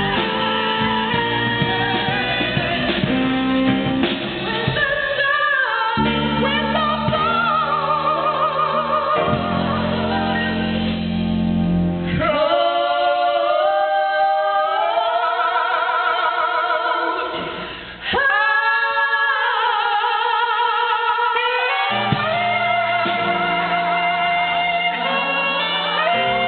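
Two women singing blues live with a backing band, their sustained notes wavering with a wide vibrato. About twelve seconds in the band drops away and the voices carry on over sparse backing, and the full band comes back in about 22 seconds in.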